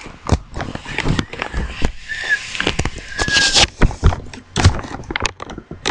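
Handling noise from the camera being fumbled with and set in place: a quick, irregular run of sharp knocks, clicks and rustles, with a couple of brief squeaks.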